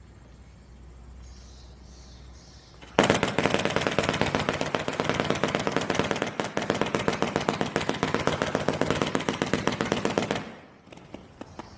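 897-shot firework cake (three 299-shot cakes chained) firing a rapid string of launch shots. The shots start about three seconds in, run for some seven seconds, then stop, with a few scattered pops near the end.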